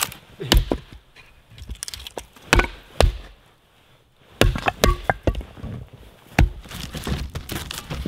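Pieces of firewood knocking and clacking together as they are handled and set down: irregular sharp wooden knocks and cracks, coming faster near the end.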